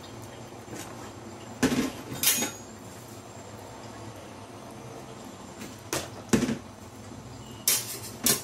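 Kitchen clatter: three pairs of short, sharp knocks, like cookware or a cupboard being handled, over a steady low hum.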